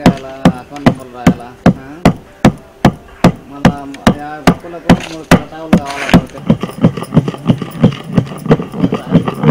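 Wooden pestle pounding roasted cinnamon and cloves in a stone mortar: a steady rhythm of dull thuds, about two and a half a second, quickening a little about six seconds in.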